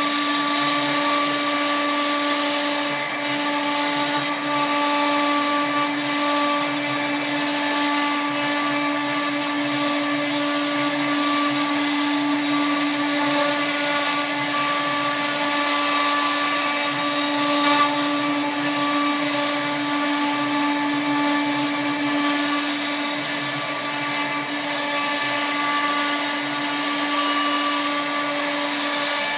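CNC router spindle running at a steady whine as its bit routes grooves into a wooden sheet, with a constant hiss from the cut.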